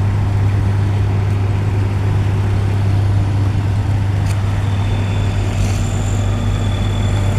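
A large engine running steadily at constant speed, a deep unbroken hum, with a faint high whine joining about halfway through.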